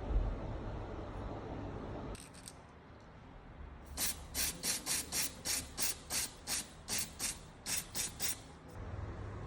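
A run of short, scratchy rubbing strokes, about three a second, from hand work on a resin keycap as it is coloured. The strokes start about four seconds in and stop shortly before the end, over low steady background noise.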